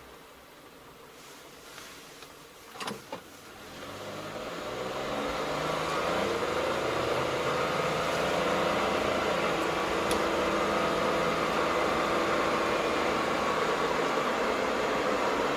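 Car pulling away from a stop, heard from inside the cabin: a couple of sharp clicks about three seconds in, then the engine rises in pitch as it accelerates and settles into steady engine and road noise while cruising.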